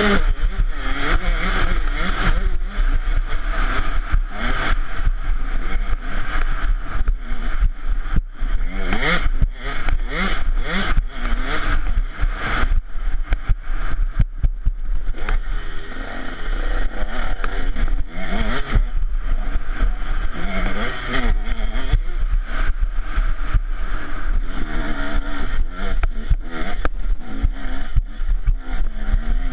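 KTM 150 SX single-cylinder two-stroke engine revving hard, its pitch rising and falling again and again as it is ridden fast through the gears on a bumpy dirt trail. Under it runs a steady low rumble of wind on the microphone, with frequent knocks and rattles from the bike over rough ground.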